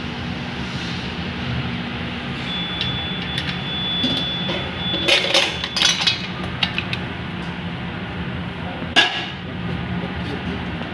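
Mussels in their shells and sauce tipped from a stainless steel pan into a stainless steel bowl, a burst of clattering shells and metal clinks about five to six seconds in, followed by one sharp metal clink a few seconds later, over a steady background rumble.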